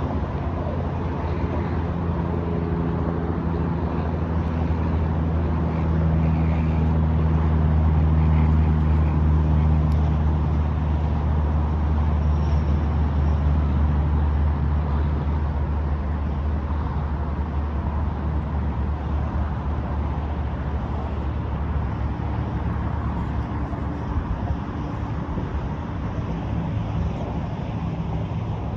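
A steady low engine drone with a hum and its overtones, swelling around the middle and easing off later, over the rumble of wind on the microphone.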